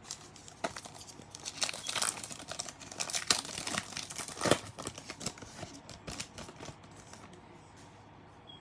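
Foil trading-card pack wrapper being torn open and crinkled, a dense crackle that dies down after about six seconds.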